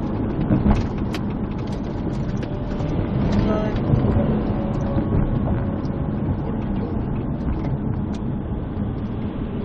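Steady vehicle rumble from inside a police cruiser's cabin, with a few faint clicks and a short pitched tone about three and a half seconds in.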